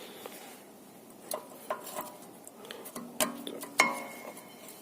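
Metal clinks and taps of a car's rear brake caliper and brake pads being fitted back together: scattered light clicks, two of them about three and four seconds in ringing briefly.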